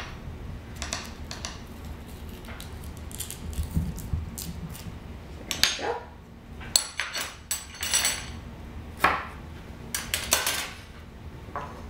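A spoon scraping the peel off a knob of fresh ginger root, with scattered short scrapes and clicks of metal utensils against the cutting board, more of them in the second half.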